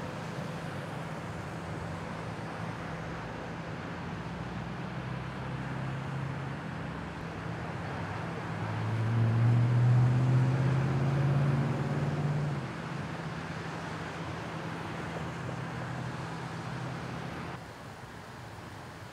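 Steady low hum of idling fire-engine diesel engines over road noise. The hum swells louder for about four seconds in the middle, then drops to a quieter steady noise near the end.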